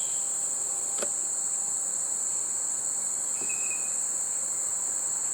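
Late-summer insect chorus: a steady, unbroken high-pitched trill. There is a single sharp click about a second in and a brief faint chirp in the middle.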